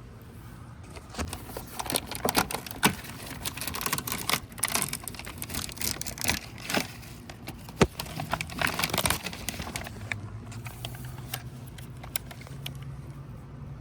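Irregular clicks, taps and rattles of hands and tools working on a car door's trim and lock hardware, with one sharp snap about eight seconds in. A low steady hum comes in after that and grows louder toward the end.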